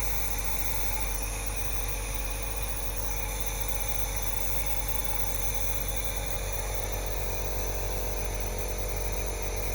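Compressor nebulizer running steadily, a continuous motor hum and buzz as it nebulizes medicine.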